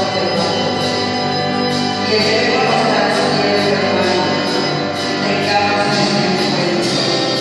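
Christian worship music: singing over sustained chords, with a light percussion beat ticking at a steady pace.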